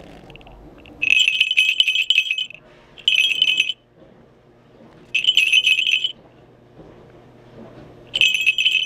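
Handmade falconry bells shaken in four separate bursts of bright, high jingling, each lasting about half a second to a second and a half, the last one near the end.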